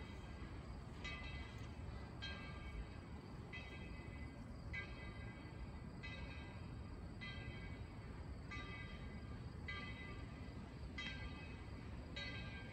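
Locomotive bell ringing steadily, one clang about every second and a quarter, each ring hanging on for about a second.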